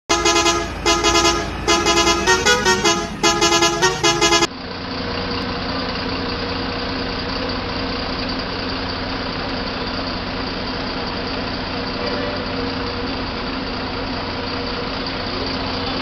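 A short tune of loud pulsed horn toots, then from about four seconds in a Volvo B7R bus's rear-mounted six-cylinder diesel idling steadily.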